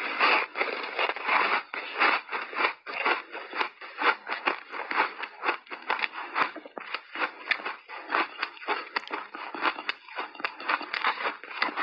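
Mouthful of crunchy snowball ice being chewed: a dense, irregular run of crunching and crackling.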